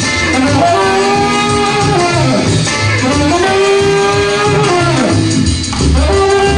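Saxophone playing a slow melody of long held notes that swoop up and down between pitches, over a backing track with bass and guitar.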